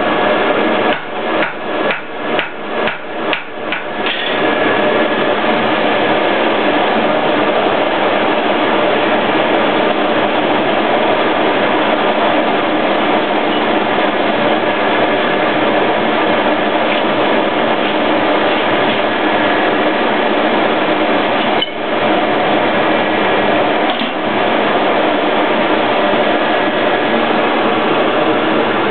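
A blacksmith's hammer striking hot iron on an anvil, about three blows a second, for the first four seconds. Then a loud, steady rushing from the coal forge, its fire blown by an air blast, with two brief drops near the end.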